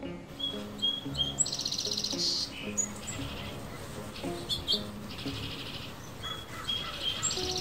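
Bird chirping: a few short high notes, then a fast buzzy trill. The same phrase comes twice, about six seconds apart, over soft background music.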